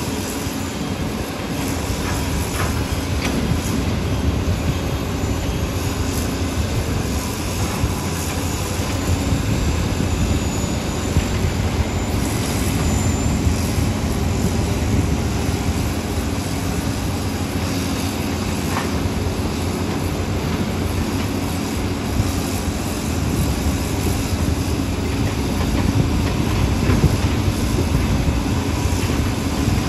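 Diesel engines of hydraulic excavators running steadily at work, with a few faint knocks.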